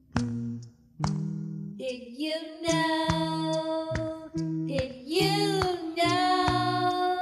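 Children's song music: a voice singing long held notes that bend in pitch, over a repeating plucked bass line and a light, regular beat.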